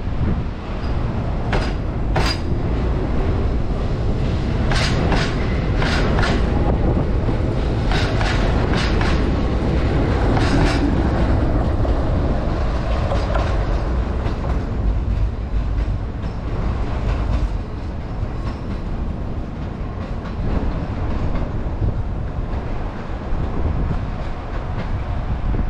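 Izuhakone Railway electric train pulling out and passing, its wheels clicking over rail joints and points in quick groups through the first ten seconds or so, over a steady low rumble. The clicking dies away and the rumble eases as the train draws off.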